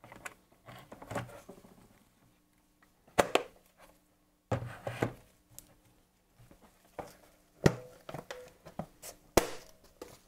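Plastic gauge-cluster housing and lens being handled and fitted together on a wooden bench: scattered clicks and knocks with soft scraping between, and three sharp louder clicks.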